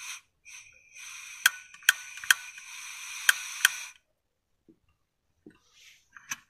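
Portable camping gas stove hissing as gas flows, while its igniter clicks sharply five times without lighting the burner. The hiss stops about four seconds in, and two more short clicks come near the end.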